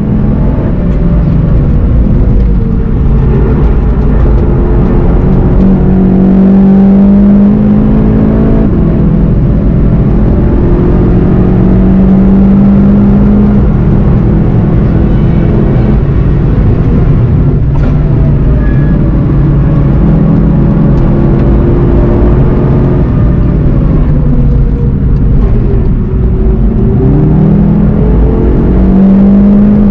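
Volkswagen Golf 7 GTI TCR's turbocharged 2.0-litre four-cylinder engine running hard on track, its pitch rising and falling with throttle and gear changes, with a sharp rise in revs near the end.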